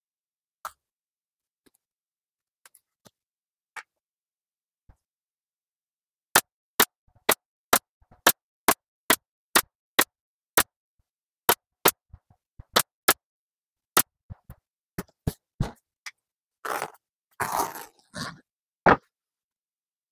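Staple gun firing a quick run of about eighteen sharp shots, roughly two a second, with a brief rustle of handling near the end and a last shot after it.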